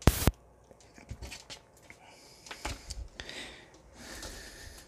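Plastic action figure being handled: a sharp clack right at the start, then a few lighter clicks and knocks of plastic parts. A couple of soft hissing noises come in the second half.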